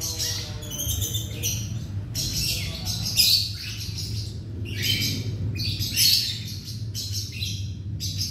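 Baby plantain squirrel squeaking in short, high chirps, about two a second, while it is fed from a syringe, over a low steady hum.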